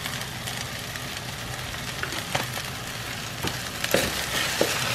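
Jambalaya rice sizzling in a large frying pan, with a wooden spoon scraping and knocking against the pan a few times in the second half as it is stirred.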